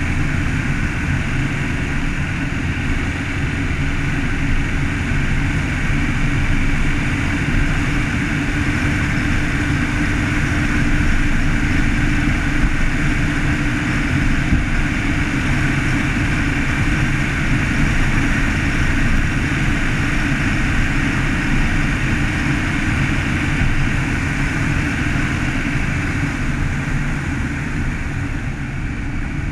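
Car driving along an asphalt road at a steady speed: a constant low engine and road rumble with a hiss of tyre and wind noise over it.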